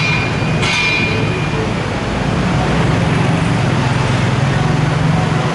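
Busy city street traffic: a steady rumble of car and truck engines and tyres, growing slightly stronger in the second half. A short ringing tone sounds about half a second in and fades within a second.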